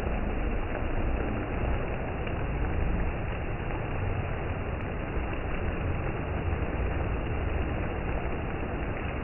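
Steady rain, with a low rumble underneath that swells and fades a few times.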